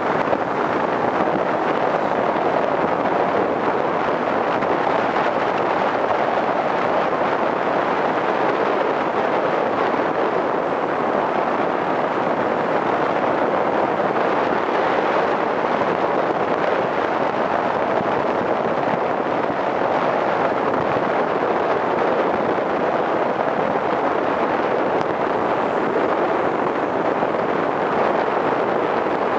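Steady rushing noise of a car driving along, the wind and road noise of the moving vehicle.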